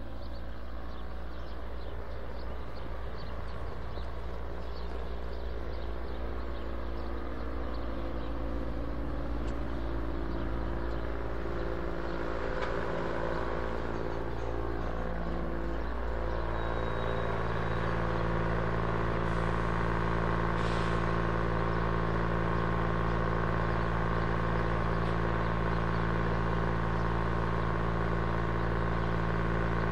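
Vehicle machinery running with a steady, pitched hum; the pitch wavers and shifts until about halfway through, then holds steady and grows a little louder.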